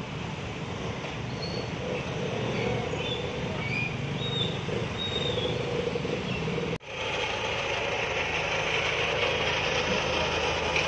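Road traffic of motorcycles and cars passing. After an abrupt cut about two-thirds of the way in, a heavy diesel engine idles steadily.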